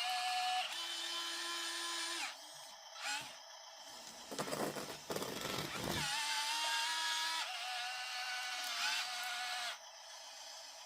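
Small electric motors and gearboxes of 1:50 scale RC construction models whining, starting, stopping and shifting pitch several times as the machines move. A rattling, scraping noise runs for about two seconds near the middle.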